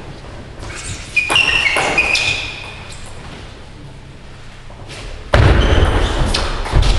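Sports shoes squeaking on a wooden hall floor for about a second, starting about a second in. From about five seconds in, a sudden loud run of thuds and knocks as a table tennis rally gets under way.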